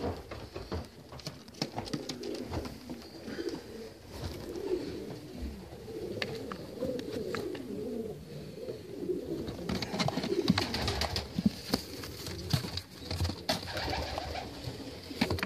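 Racing pigeons cooing, a low wavering coo that goes on through the stretch, with scattered clicks and knocks.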